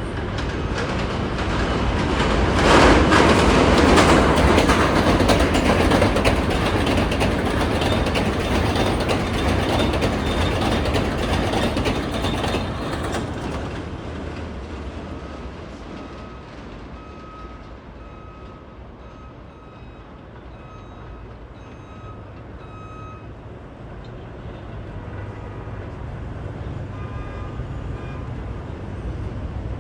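New York City subway train running through the station, rumbling loudly for about ten seconds and then fading as it moves away. Short, evenly spaced beeps sound faintly after it has faded.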